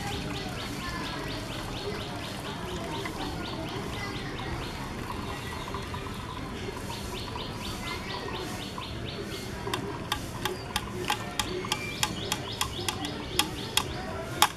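Hot herbal water poured from a steel saucepan through a small tea strainer into a steel bowl, a light trickling pour. In the second half the strainer clicks and taps sharply against the pan and bowl. A bird chirps behind in a rapid, even series.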